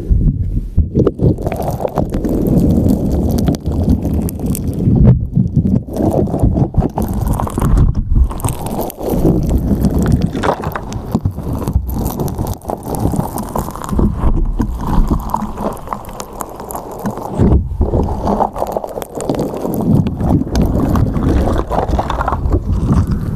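Slime squeezed, stretched and pressed by hand directly onto a microphone's grille: close, wet squelching with irregular sticky pops, and a deep, muffled rumble where the slime covers the microphone.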